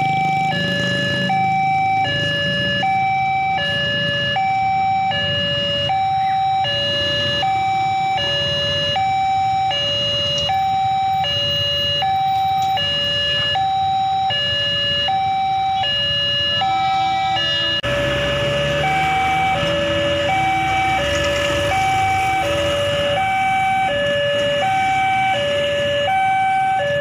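Electronic two-tone warning alarm of an Indonesian railway level crossing, sounding from the loudspeaker on the crossbuck while the barriers are down. It alternates a higher and a lower note, about one pair a second. About two-thirds of the way in, road traffic noise rises beneath it.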